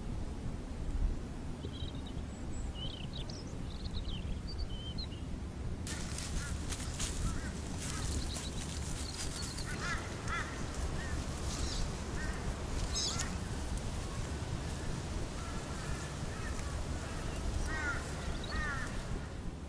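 Birds calling, with short chirping calls over a low outdoor rumble. About six seconds in, a dense crackling rustle starts and more bird calls join.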